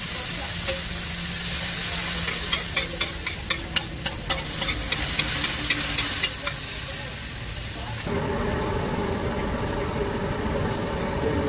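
Masala gravy sizzling on a large flat iron griddle, with a metal spatula clicking and scraping against the plate over the first six seconds or so as it is stirred. About eight seconds in the sound changes abruptly to a steadier, lower background hum.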